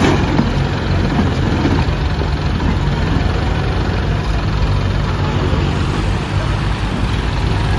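John Deere 5105 tractor's three-cylinder diesel engine running steadily with an even low throb, the tractor stuck in mud under a loaded trolley.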